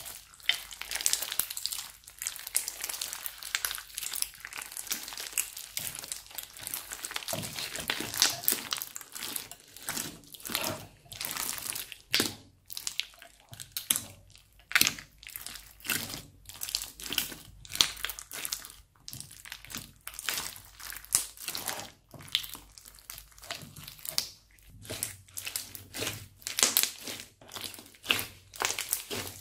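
Hands stretching, squeezing and kneading crunchy slime, which crackles and crinkles. The crackle is dense and continuous for the first dozen seconds or so, then comes in separate short squishes, about one or two a second, as the slime is kneaded.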